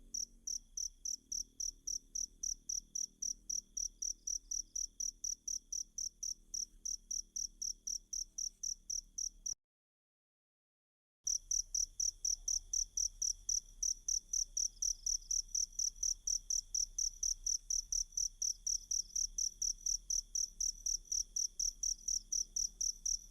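Cricket chirping in a fast, even rhythm of about four to five high-pitched chirps a second. The sound cuts out completely for about a second and a half near the middle, then resumes unchanged.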